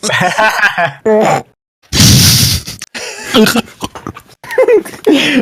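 Wordless vocal noises from a person's voice into a microphone in several short bursts, with one loud, rough blast about two seconds in.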